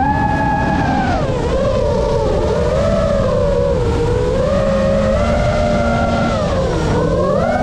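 FPV racing quadcopter's motors and propellers whining, the pitch sliding up and down with the throttle, over a rough rush of prop wash and wind. The whine drops low about seven seconds in and climbs back as the throttle is punched again.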